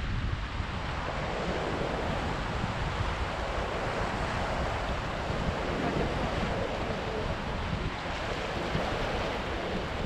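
Small ocean waves breaking over rocks and washing up a sandy shore: a steady rushing wash that swells a little midway, with wind rumbling on the microphone.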